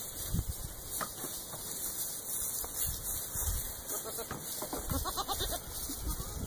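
A goat bleats a few times about four to five seconds in, over low thumps and rustling of footsteps in straw bedding.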